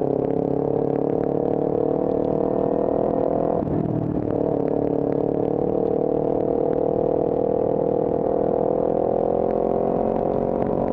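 Motorcycle engine running steadily under way, heard from the rider's own bike. The engine note breaks briefly a little over three and a half seconds in, then holds and climbs gently in pitch.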